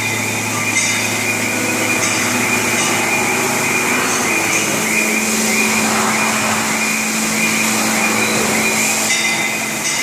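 CNC machine running: a steady mechanical noise with a low hum that steps up to a higher pitch about halfway through, over an evenly pulsing high whine.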